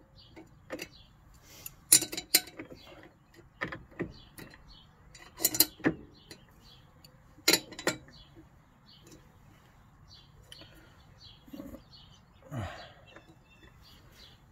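Metal wrench clinking and clicking on a mower's blade bolts as they are hand-tightened: sharp, irregular metallic clicks in small clusters, thinning out and fading in the second half.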